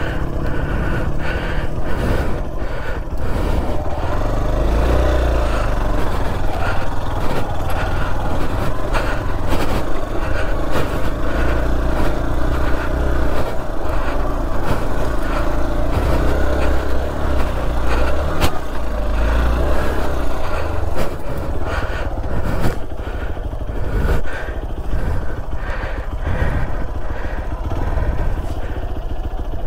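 Hero XPulse 200 4V's single-cylinder engine running under load while the motorcycle rides up a rough off-road track. The engine note rises and falls with the throttle, over frequent knocks and rattles from the bike on the uneven ground.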